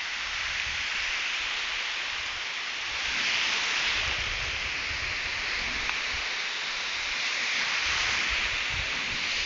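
Surf breaking and washing up a sandy beach: a steady rushing hiss of waves and foam that swells a little about three seconds in and again near the end.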